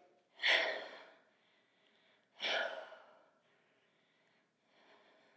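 A woman's audible breaths, twice: one about half a second in and another about two and a half seconds in, each starting sharply and fading within under a second.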